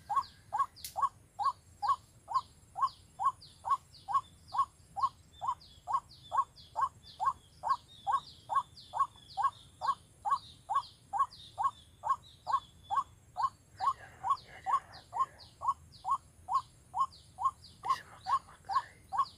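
White-breasted waterhen (ruak-ruak) calling: one short downward note repeated over and over at about three a second, steady and unbroken.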